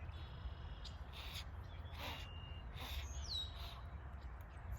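Birds chirping and calling in the background, with a short falling whistle about three seconds in, over a steady low rumble.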